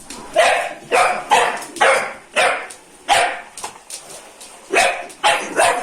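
French bulldog puppy barking in a quick run of short barks, about two a second, pausing for a moment about four seconds in.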